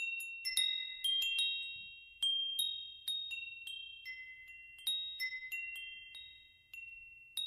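Chimes ringing: a few high metallic notes struck at uneven intervals, each one ringing on and fading.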